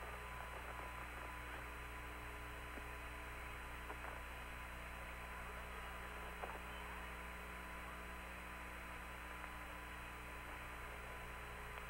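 Steady electrical hum and hiss on the Apollo 16 air-to-ground radio link between transmissions, with two faint clicks.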